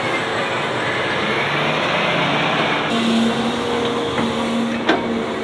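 Heavy diesel construction machinery running: a Cat 730 articulated dump truck's engine as it drives by. About three seconds in, a Cat excavator takes over with a steady low hum while it digs, and a single sharp knock comes near the end.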